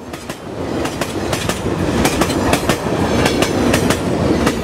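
Intro sound effect: a rumbling noise that swells over the first couple of seconds, with many sharp irregular clicks running through it.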